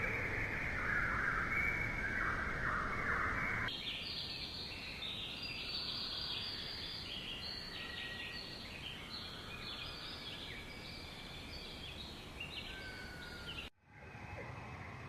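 Rainforest ambience: a dense chorus of overlapping chirping animal calls. It changes abruptly to a higher-pitched chorus about four seconds in, then breaks off briefly near the end into a different, lower chorus.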